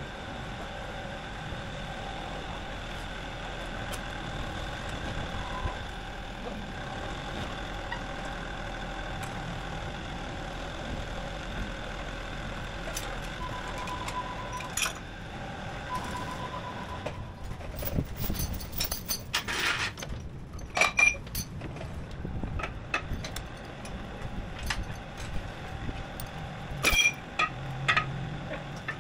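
Forklift running and moving, with two short beeps about 13 and 16 seconds in. From about 18 seconds on come irregular metallic clanks of a crawler dozer's steel track chain being handled back into place.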